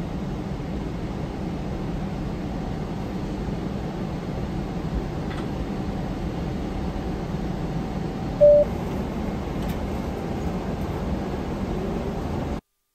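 Steady rumble and hiss of an airliner cabin, from the jet engines and airflow, with a short single-tone cabin chime about eight and a half seconds in. The sound cuts off suddenly near the end.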